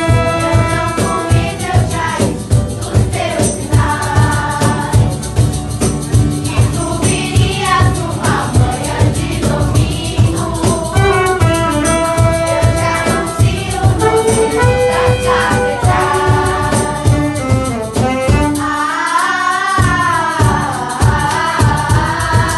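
Girls' youth choir singing, with a saxophone and a trumpet playing along and a rattling shaker keeping a steady beat. Near the end the low backing drops away briefly while a wavering melody carries on.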